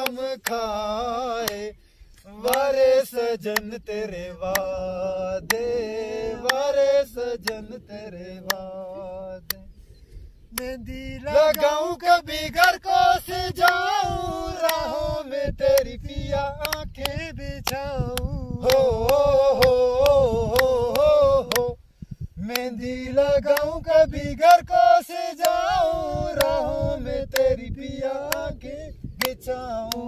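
Unaccompanied men's voices singing a folk melody in long, wavering held notes, with hand claps keeping time. The singing breaks off briefly about 2 seconds in, 10 seconds in and 22 seconds in.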